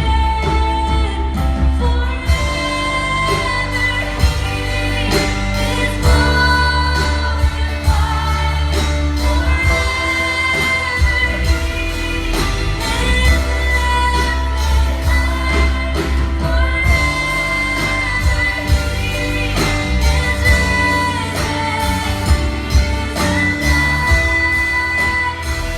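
Live worship music: a band with heavy bass and drums playing under sung melody, with a female voice prominent.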